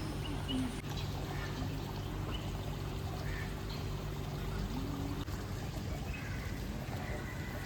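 Water pouring and trickling steadily, with a low steady hum underneath.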